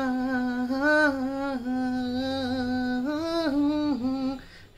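A single voice humming the melody of a Hindi film song in long held notes with small rises and dips in pitch. It breaks off shortly before the end.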